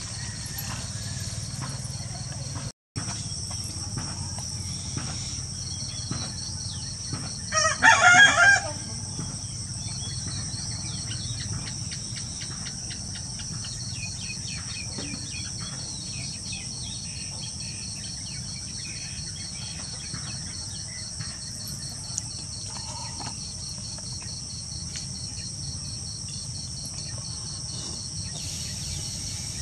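Steady high chirring of crickets throughout, with one short, loud animal call about eight seconds in. The sound drops out for an instant near three seconds.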